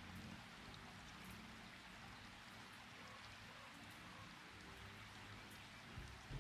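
Near silence: a faint steady hiss with a weak low hum.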